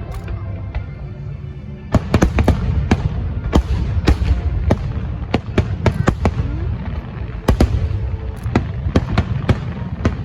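Fireworks display: a continuous low rumble of shell bursts, then from about two seconds in a dense, irregular run of sharp bangs.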